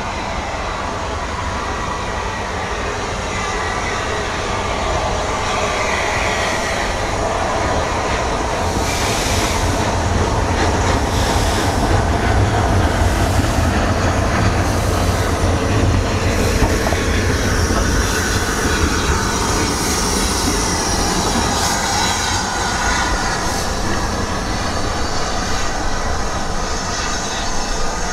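Merchant Navy class steam locomotive 35028 Clan Line running light engine past at slow speed, a steady rumble of wheels on rail that grows loudest as it passes about halfway through, with a run of knocks over the track. Faint high wheel squeal follows as it moves away.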